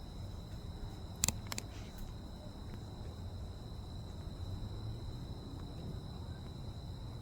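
Insects trilling steadily in one high, unbroken tone over a low, even background noise. Two sharp clicks come about a second in.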